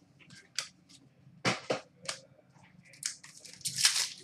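Trading cards being handled on a table: a few sharp taps and clicks, the loudest a double tap about a second and a half in, then a longer scraping rustle near the end.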